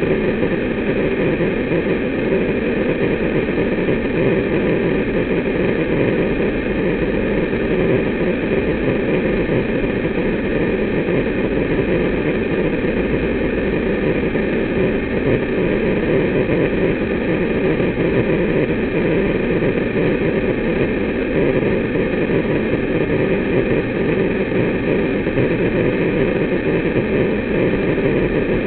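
Motor of a full-cassette motorised awning running with a steady, even hum while the awning retracts and its arms fold in.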